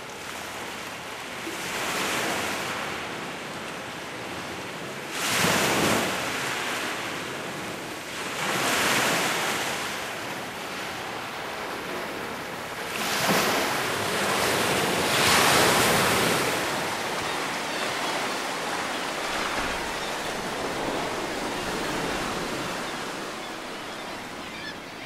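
Small sea waves breaking and washing up a pebble beach, swelling louder every three to four seconds, then a steadier wash through the second half.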